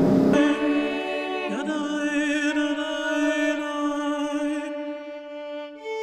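Background music of slow, long-held notes with vibrato, the harmony shifting to a new note near the end.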